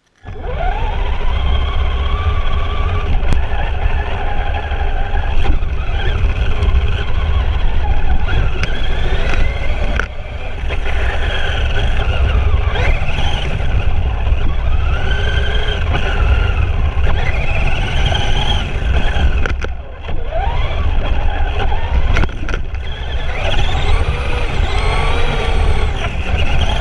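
Traxxas Summit RC truck's electric motor and geared drivetrain whining, the pitch rising and falling again and again with the throttle, over a heavy low rumble, heard from a camera mounted on the truck itself. The whine briefly drops away about ten seconds in and again near twenty seconds.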